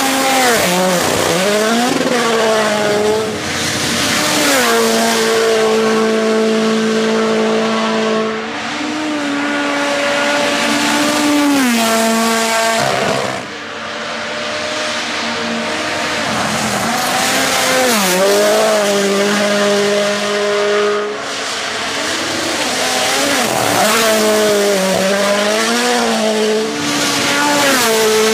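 World Rally Championship cars, including a Toyota GR Yaris Rally1, driven flat out one after another on gravel stages. The engine note holds a steady pitch for a few seconds, then swoops down and back up as the driver lifts or changes gear, with a brief drop in loudness between passes.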